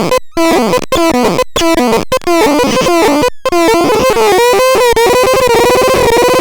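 Melodixon instrument playing quick, choppy stepped notes with a bright, buzzy tone rich in overtones; about four seconds in it settles into one held note that wavers slightly in pitch.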